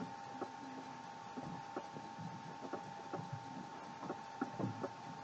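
Quiet room with a faint steady whine and scattered light clicks and taps.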